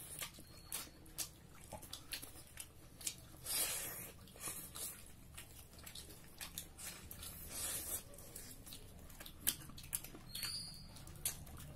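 Close-miked eating sounds: wet chewing, lip smacks and sucking as duck curry is eaten off the bone by hand, with many small sharp clicks and a couple of short breathy rustles.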